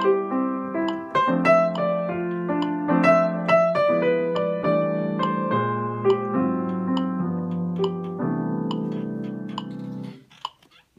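Yamaha grand piano playing a jazz improvisation: a right-hand melodic line of single notes over sustained left-hand chords, ending on a held chord that dies away about ten seconds in. A few faint clicks follow near the end.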